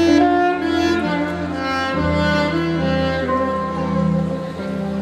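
Alto saxophone playing a slow, sustained melody over an accompaniment with held low bass notes and string-like chords.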